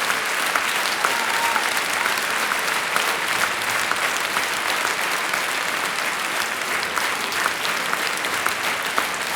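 Large concert audience applauding: a steady, dense clatter of many hands clapping.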